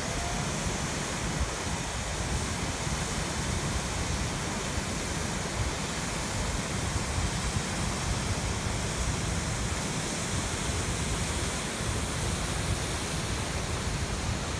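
Water pouring from the open gates of a concrete dam spillway into the river below: a steady, unbroken rush.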